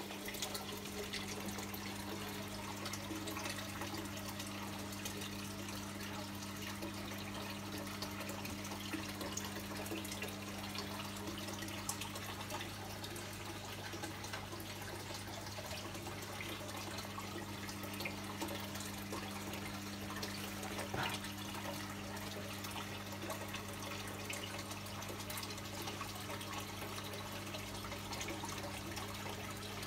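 Aquarium water bubbling and trickling, full of tiny pops from rising air bubbles, over a steady low hum of the tank's equipment.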